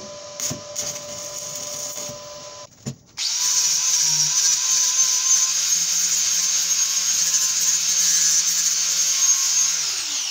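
Electric arc welding hiss and crackle for the first few seconds, then an angle grinder starts and grinds down a fresh weld on a square steel tube for about seven seconds, its motor winding down near the end.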